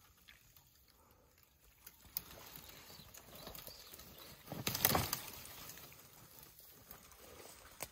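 Elephants pulling at branches in a dry tree: a sharp twig snap about two seconds in, then a louder burst of wood cracking and branches rustling near the middle, and another snap near the end.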